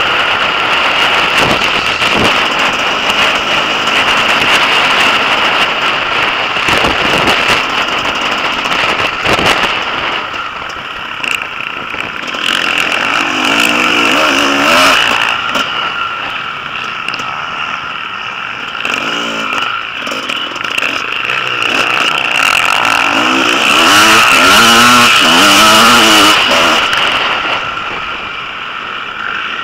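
A motocross bike engine heard from on board, revving up and down as the rider accelerates and backs off around the track. It is loudest about three quarters of the way through.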